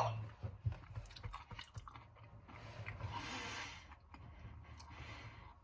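Close-up chewing of crunchy Doritos tortilla chips, with a run of crisp crunches in the first couple of seconds that then grows softer and more sparse.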